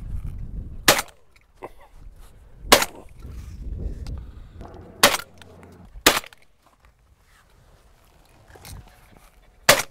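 Five shotgun shots from a Browning Maxus semi-automatic, spaced one to four seconds apart, fired at woodpigeons coming in over decoys, with a low rumble between the first few shots.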